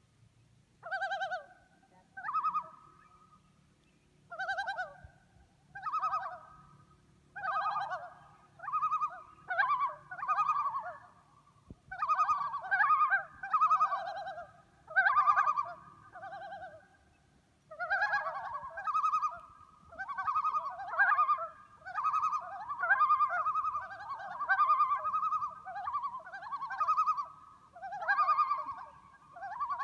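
Several common loons calling together in repeated quavering calls, a few seconds apart at first, then overlapping almost without break from about twelve seconds in.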